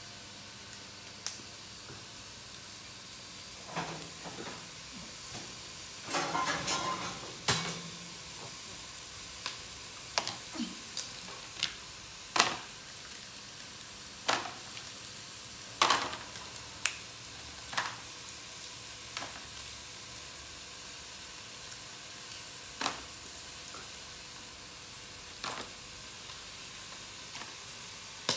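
Small plastic jelly cups clicking and clacking as they are picked up and dropped into plastic containers, in single taps every second or two, with a longer crinkling rustle about six seconds in, over a steady hiss.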